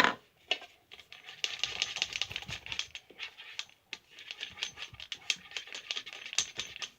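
Utensil stirring clear glue and green colouring in a container: a quick, irregular run of clicks and scrapes against the container's sides.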